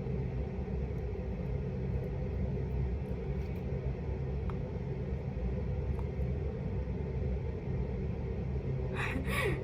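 A steady low rumble or hum throughout, with a couple of faint clicks in the middle and a short, brighter sound just before the end.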